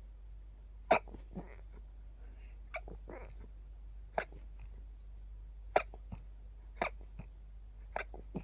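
A person's rapid, stifled sneezes in a sneezing fit: about six short, sharp, held-back bursts, irregularly spaced roughly a second apart, each one kept quiet rather than let out fully.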